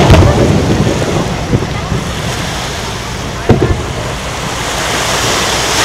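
Aerial firework shells bursting: a loud boom with a rumble trailing after it, and a smaller bang about three and a half seconds in. A hiss swells near the end.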